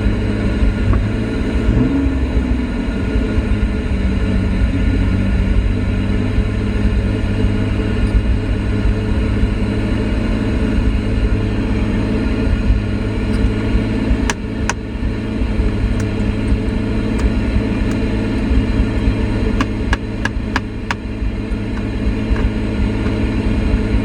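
Pontiac Fiero engine running steadily, with a brief rise in pitch about two seconds in. A few sharp clicks come in the second half.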